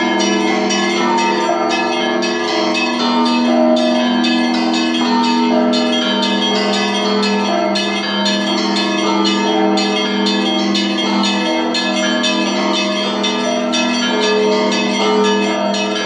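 Russian Orthodox belfry bells rung together in a continuous peal (zvon). Several bells of different sizes are struck in quick, overlapping strokes, their clappers pulled by long ropes from the ground, with the deep tones of the big bells humming steadily beneath the rapid small-bell strikes.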